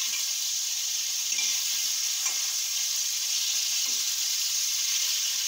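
Marinated chicken pieces sizzling steadily as they brown in butter and oil in a stainless steel pot, with a spatula turning them and a couple of light scrapes.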